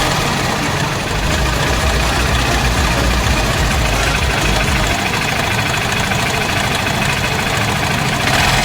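Honda Shine motorcycle's single-cylinder engine idling steadily; its deep low rumble eases about halfway through.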